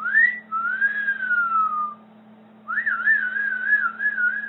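Whistling: a quick rising note, then a long slow falling glide. After a short pause comes a warbling whistle with a fast, even wobble in pitch. A steady low hum lies underneath.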